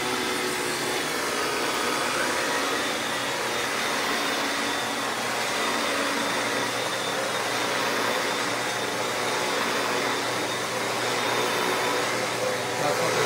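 Shark Powered Lift-Away upright vacuum cleaner running steadily while pushed over carpet. The owner says its motor is bad.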